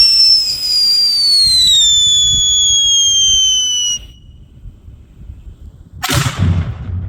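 Whistling firework: a loud, high whistle slowly falling in pitch for about four seconds, then cutting off suddenly. About two seconds later a single firework bang follows, with a short decaying tail.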